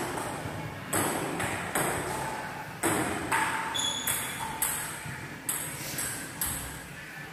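Table tennis ball in play: about a dozen sharp, hollow clicks of the plastic ball striking paddles and bouncing, irregularly spaced, each with a short ring.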